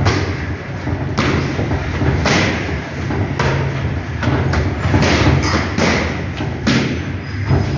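Kicks and strikes landing on curved Thai pads: about eight sharp thuds, roughly one a second.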